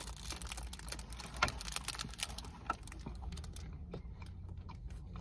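Clear plastic bag around a pastry crinkling as it is handled, a rapid scatter of small crackles and clicks that thins out after about three seconds, over a low steady hum.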